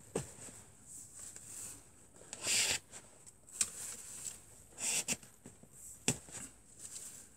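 Wooden arrows being pulled by hand out of a plastic-wrapped foam target, with short scraping rustles and a few sharp clacks.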